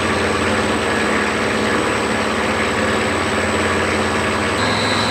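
A 5 hp three-phase AC electric motor, fitted in place of a car's engine, running steadily and turning the drivetrain with the differential hanging free: a steady mechanical hum with several held tones, and a higher whine joins about four and a half seconds in.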